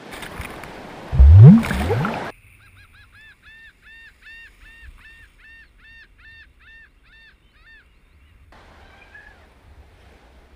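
A loud, noisy burst with a low pitch sweeping upward twice, then a rapid run of goose honks, about three a second, for some six seconds over a dead-silent background, like an edited-in sound effect. Surf noise comes back near the end.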